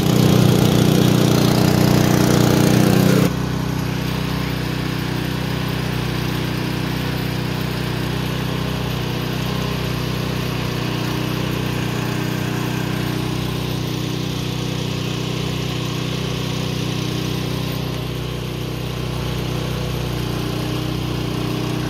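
Engine driving a belt-driven sugarcane crusher, running steadily. It is louder and rougher for the first three seconds, then drops to a lower, even drone.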